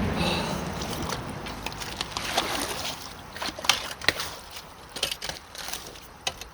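Water sloshing and splashing as debris is worked loose in a clogged culvert, followed by a run of sharp clicks and knocks that grow sparser toward the end.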